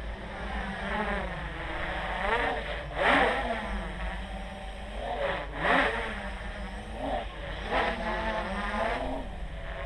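Armattan CNC 355 quadcopter's electric motors whining. The pitch swoops up and down in sharp throttle surges about three seconds in, again around five to six seconds, and near eight seconds, over a steady low rumble.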